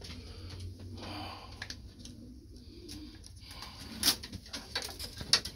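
Pigeons cooing in a loft, with a sharp knock about four seconds in and another near the end.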